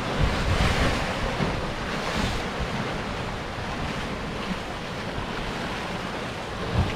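Sea surf breaking and washing over rocks. The hiss of the wash swells in the first couple of seconds, then eases, with wind buffeting the microphone.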